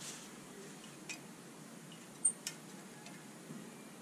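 A few light metallic clicks as a valve spring compressor tool is worked into place on an M52 cylinder head's valve springs, the sharpest a little past halfway.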